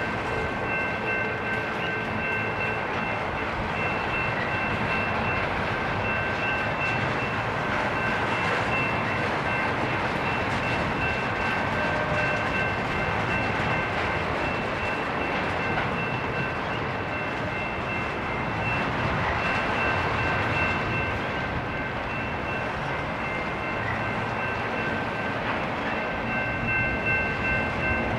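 Intermodal freight train rolling past very slowly: a steady rumble and grind of the cars on the rails. Thin, steady high-pitched tones ring over it for the first half and come back near the end.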